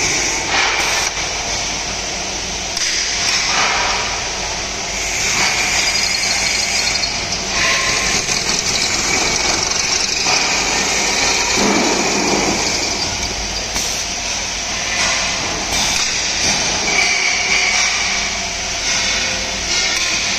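Automatic pipe drilling machine running, its electric motors and drill heads working a steel scaffolding pipe: a steady mechanical whir with short high-pitched squeals that come and go.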